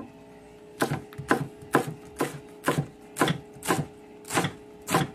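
Kitchen knife slicing banana blossom on a cutting board: a steady run of crisp chops, about two a second, starting about a second in.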